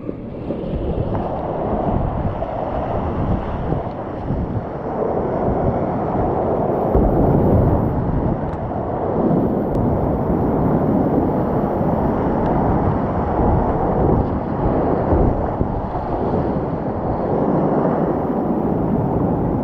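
Steady rushing of whitewater in a river rapid, with wind buffeting the microphone.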